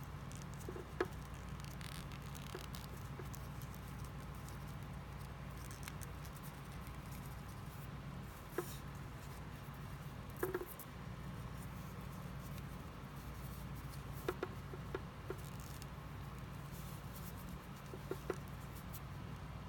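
Faint scattered clicks and light scratching of hands handling a braided paracord fishing lure, its fishing line and small hooks, over a steady low hum.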